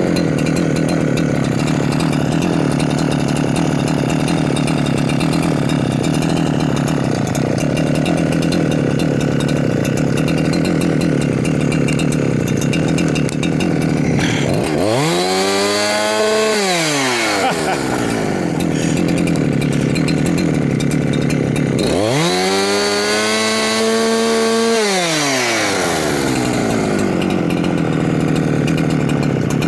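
Huyosen 6524 two-stroke chainsaw (a Husqvarna 365 clone) running steadily at idle after its low-speed mixture screw was adjusted. It is revved up to high speed twice, about 15 and 22 seconds in, holding each rev for two to three seconds before dropping back to idle.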